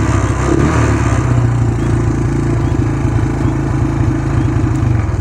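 1985 Suzuki QuadSport 230's single-cylinder four-stroke engine running steadily at a raised idle, turned up so the headlight burns as bright as it can.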